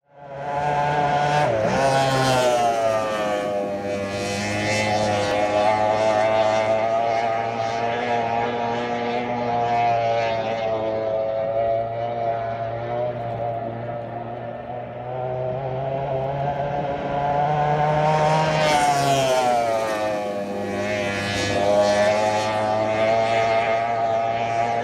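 CRT CR 2.5-litre racing engine on a race boat running flat out across the water, a steady high engine note whose pitch dips and climbs back twice, about two seconds in and again past the middle, as the boat sweeps past.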